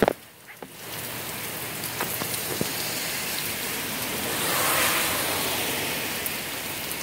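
Steady rain in a thunderstorm, an even hiss of drops falling on the ground and porch, swelling a little about halfway through. A single knock right at the start as the camera is set down.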